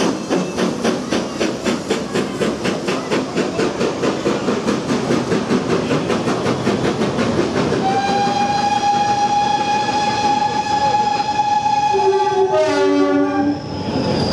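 GWR Prairie 2-6-2T steam tank locomotive No. 5521 pulling away, its exhaust beats quickening as it gathers speed. About eight seconds in, a long steady train whistle sounds for about five seconds and ends in a short falling run of tones.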